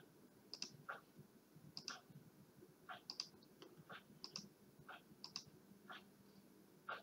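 Faint computer mouse clicks, about a dozen at uneven intervals, as corners are picked one by one in the CAM program.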